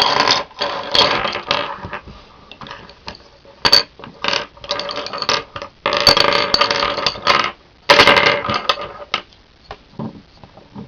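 Loose plastic Rubik's Cube pieces clattering and clicking as they are sorted through and handled, in several bursts of rattling with short pauses and single clicks between.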